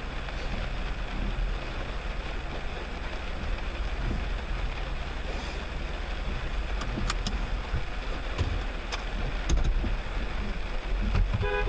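Storm wind and rain: a steady rushing noise with wind buffeting the microphone, and a few sharp taps in the middle.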